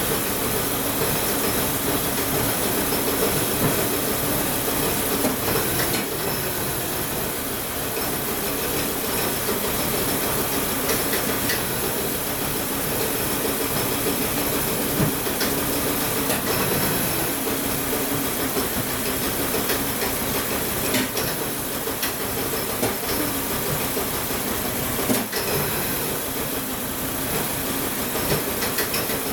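Volvo 850 T5's turbocharged inline-five engine running steadily, heard from the open engine bay, with a steady rushing noise over the engine hum and a few faint clicks.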